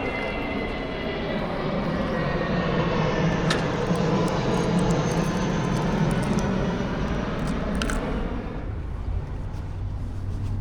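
1981 Yamaha XJ650 Maxim's air-cooled inline-four running on the move, getting louder through the middle as it pulls, then dropping back about two thirds of the way through. Two short clicks along the way.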